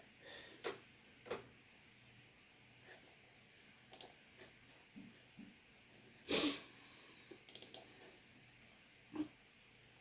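Scattered soft clicks and taps from the HP EliteBook 8470p laptop's touchpad buttons and keyboard as installer dialogs are worked, with a louder brief noise about six and a half seconds in.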